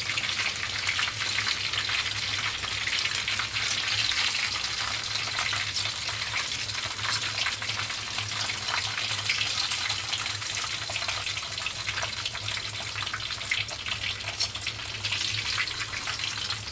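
Hot cooking oil sizzling steadily with many small crackles as breaded chicken pieces deep-fry.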